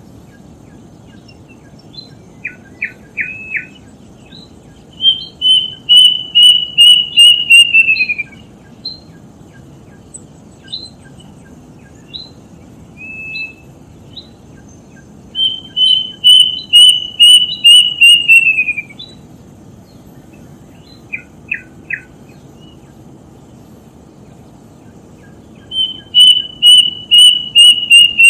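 A bird known locally as the 'tutit tutit' singing: three runs of about a dozen rapid, clear whistled notes, each run dropping in pitch at its end. Shorter calls of a few sharp notes come in between.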